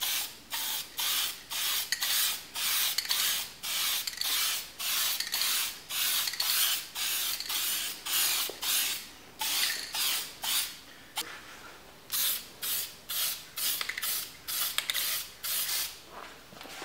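Aerosol spray-paint can spraying in short hissing bursts, about two a second, with a brief pause about eleven seconds in.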